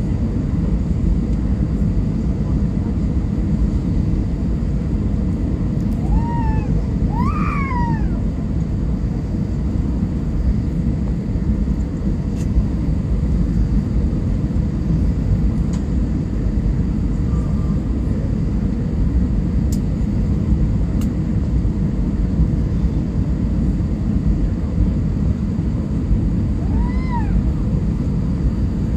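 Airliner cabin noise on the landing approach: the steady low roar of the jet engines and the air rushing past the fuselage, heard from inside the cabin. Short high-pitched cries rise and fall a few times, about a quarter of the way in and again near the end.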